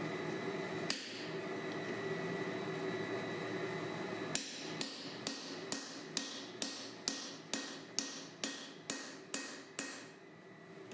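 Hammer blows ringing on an anvil while forging steel bar: one blow about a second in, then a steady run of about a dozen blows, roughly two a second, from about four seconds in until near the end, over a steady background hum.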